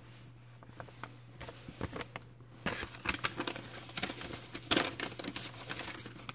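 Paper bag crinkling and rustling as the engine's valve lifters are put into it, with scattered light clicks and taps.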